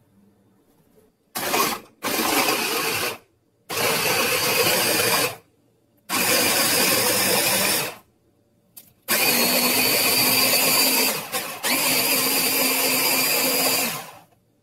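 Electric mini chopper's motor and blade running in six pulses with short pauses between, the first under a second and the later ones about two seconds each, blending quartered tomatoes into a purée.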